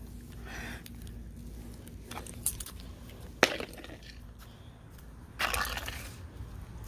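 A small makeup palette being smashed on a concrete driveway: a couple of sharp cracks, the loudest about three and a half seconds in, then a short scuffing clatter near the end.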